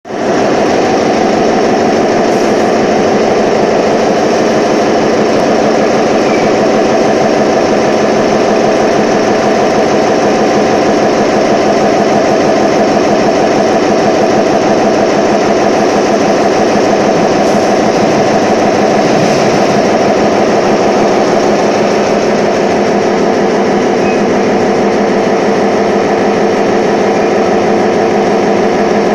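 Concrete pile production machinery, including the automatic concrete feed machine, running with a loud, steady drone. Its tone shifts slightly about two-thirds of the way through.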